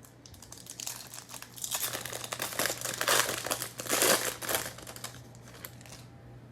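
A foil trading-card pack wrapper being torn open and crinkled by hand, a crackling rustle that builds about a second in, is loudest through the middle, and dies away near the end.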